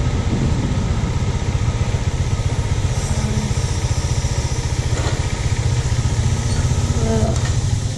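Bajaj Dominar motorcycle's single-cylinder engine running steadily at low revs with a fast, even pulsing beat as the bike rolls slowly and idles.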